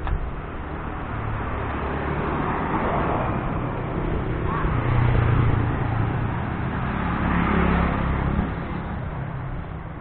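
Small motorcycles passing close by on the street one after another, engine sound swelling and fading, loudest about five seconds in and again near eight seconds.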